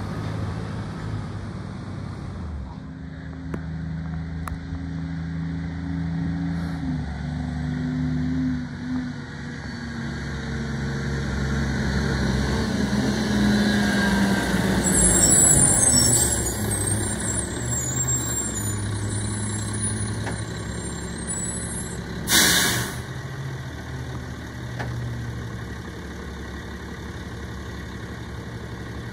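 Garbage truck diesel engines running as a rear-loader truck drives up, its engine note changing with speed and loudest as it passes close. About two-thirds of the way in there is one short burst of air brake hiss as the truck stops, and then the engine idles.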